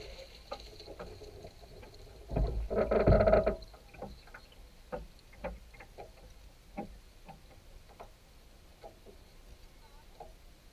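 Trimaran hull dragged a short way up the slipway, giving a loud grating scrape that lasts a little over a second, about two seconds in. After it come scattered light knocks and clicks from the boat settling and gear being handled.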